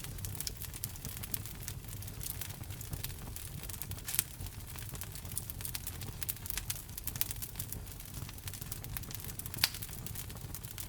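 Wood logs burning in a fireplace, crackling steadily over a low rumble, with two sharper pops, one about four seconds in and one near the end.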